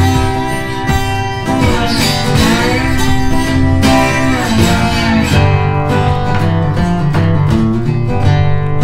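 Background music led by acoustic guitar, with a strong bass line.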